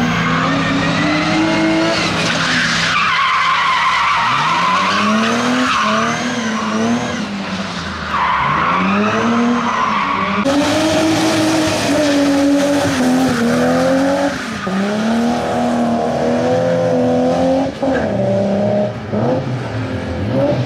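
Race car engines revving hard and dropping again and again. Between about two and ten seconds in there are long tyre squeals as the cars slide through tight turns.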